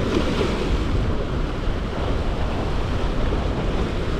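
Steady wind buffeting the microphone over the wash of surf against the jetty.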